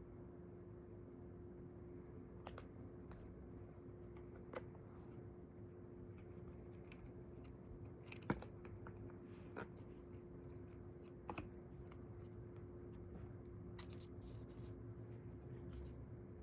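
Faint, scattered clicks and taps of an iPhone 12 box and its packaging being handled, one sharper click a little past halfway, over a steady low hum.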